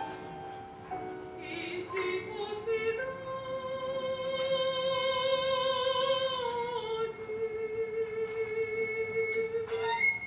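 A classically trained female voice singing in operatic style, rising into one long held note with vibrato that steps down a little past the middle and is held until it breaks off near the end.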